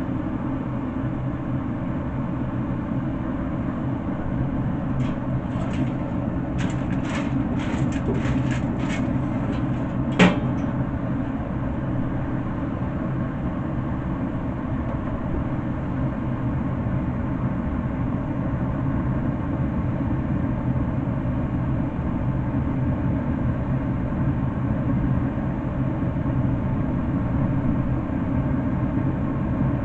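Pellet smoker's fan running with a steady low hum and rumble while the grill heats up. A run of light clicks comes about five to nine seconds in, then one sharper clack about ten seconds in.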